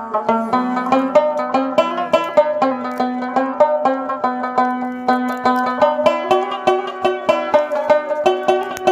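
Background instrumental music: a quick, steady run of plucked-string notes over a held low note.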